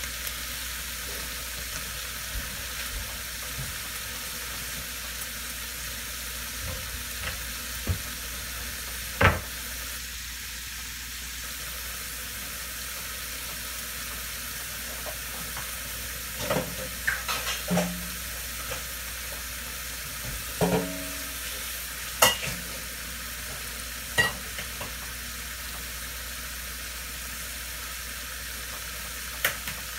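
Bean sprouts and cherry tomatoes frying in oil in a nonstick pan, with a steady sizzle. A few short sharp clicks and knocks are scattered through, the loudest about a third of the way in and again about two-thirds through.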